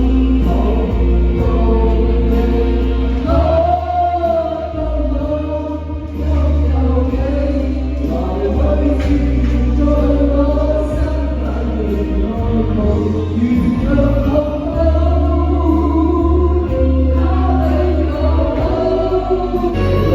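Amplified band music with voices singing, over a heavy, steady bass.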